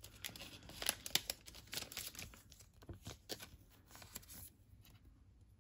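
Baseball trading cards being slid and shuffled against one another in the hands: faint scrapes and clicks of card stock, dying away after about four and a half seconds.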